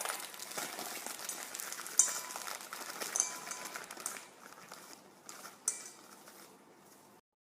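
Kitchen handling noises: rustling and crinkling with scattered clicks and clinks. They are loudest in the first four seconds, with sharp knocks about two and three seconds in and a last one near the end.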